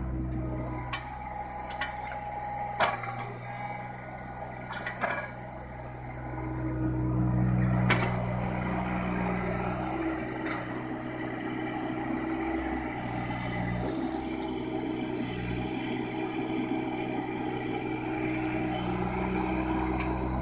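Mini excavator's diesel engine running steadily while it digs, working harder for a couple of seconds near the middle. Several sharp knocks come in the first eight seconds.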